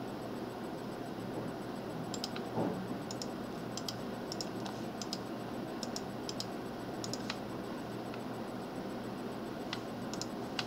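Scattered sharp clicks of a computer mouse, a dozen or so in clusters through the first seven seconds and a few more near the end, with one duller knock about two and a half seconds in, over a steady background hiss.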